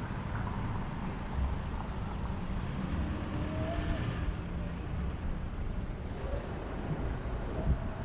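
City street traffic: a steady low rumble of cars and larger vehicles going by, with a short low bump near the end.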